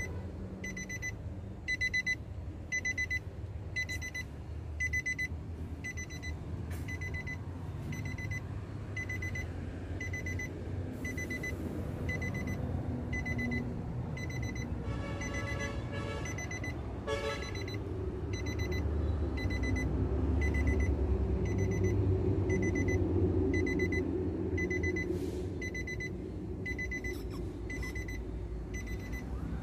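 Nissan Navara pickup's warning chime beeping steadily and evenly, somewhat more than once a second, with the driver's door open. A low steady rumble runs underneath and swells near the end.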